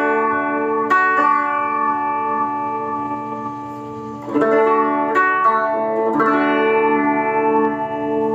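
Electric guitar played through a Joyo Vision Dual-Modulation pedal on its rotary-speaker setting. Four chords are strummed and left to ring, and each one wobbles with a rapid, even pulse in its sustain.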